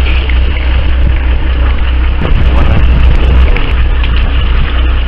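Boat engine running steadily with a constant low rumble, heard on deck.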